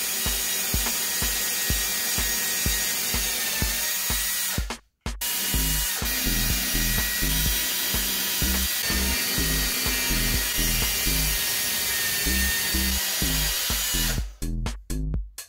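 Electric drill in a portable drill-press stand running with a steady high motor whine as it bores 5 mm shelf-pin holes in a pine board, heard over background music with a steady beat.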